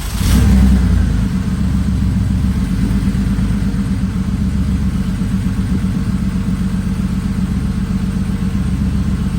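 Porsche 964's air-cooled flat-six, exhausting through a Dansk G-pipe fitted in place of the secondary muffler. It flares briefly just after catching, then settles into a steady, deep idle.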